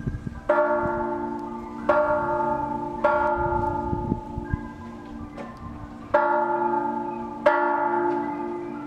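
Church bell ringing: five strokes at uneven intervals, each one ringing on and fading before the next.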